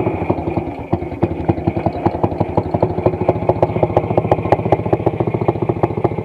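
WSK 125 motorcycle's single-cylinder two-stroke engine idling steadily, with an even, pulsing beat.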